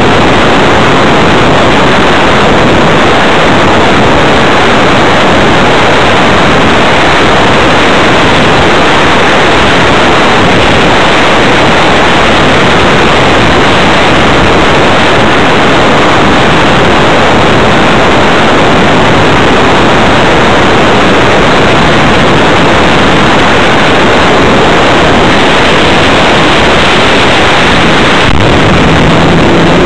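Loud, steady rush of airflow over the onboard keychain camera's microphone on a Multiplex Blizzard hotliner in flight, with no motor tone heard: the model is gliding with the motor off.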